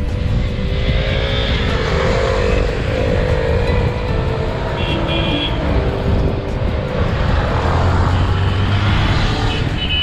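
Steady road and engine noise from a moving car with motorcycles running close behind, and above it a tune of held, stepping tones.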